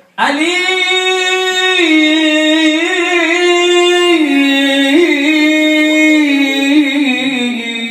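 A man's voice singing unaccompanied into a microphone: one long drawn-out note with ornamental turns, stepping down in pitch about halfway through and again near the end.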